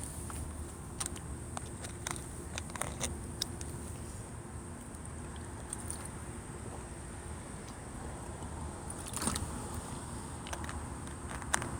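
Scattered clicks and scrapes of things being handled close to the microphone, over a steady low rumble of street traffic, with a louder rustle about nine seconds in.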